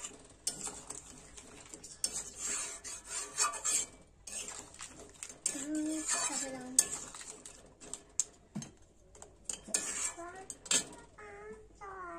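A metal spatula stirring a wet curry in a metal karai (wok), with irregular scrapes and clinks of metal against the pan.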